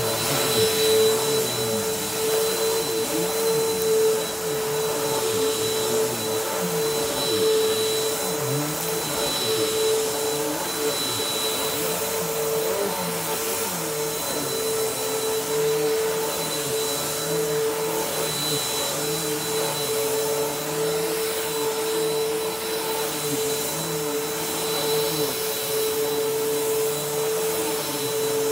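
Bissell PowerForce Helix upright vacuum cleaner running continuously, a steady motor whine over rushing air noise, with lower tones wavering up and down.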